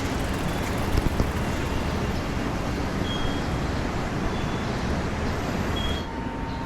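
Street traffic noise: a steady rumble and hiss of passing vehicles, with a few short faint high peeps, dropping slightly in level about six seconds in.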